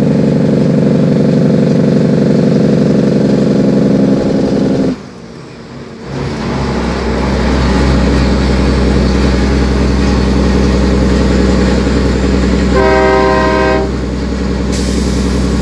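Cummins N14 diesel in a dump truck running loudly under way, heard from the cab; about five seconds in it drops off for about a second, as in a gear change, then comes back in. Near the end a horn sounds for about a second.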